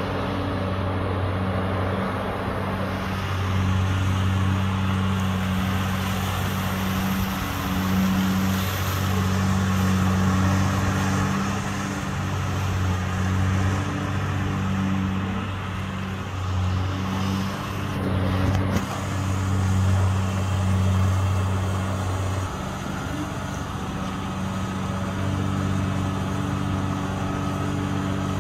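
Diesel engine of a long-reach dredging excavator running under working load as the arm digs and swings, its note rising and easing. There are two short knocks about two-thirds of the way in, and the note changes near the end.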